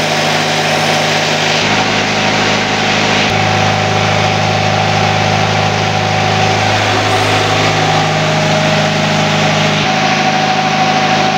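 Isuzu Panther 2.3-litre four-cylinder diesel engine driving a generator, running steadily at governed speed, with slight shifts in its tone a few times. The generator is putting out about 223 V at 52.6 Hz.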